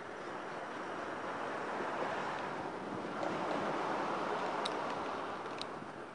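Steady outdoor rushing noise, like wind or lapping water, swelling toward the middle and easing near the end, with a few faint high ticks.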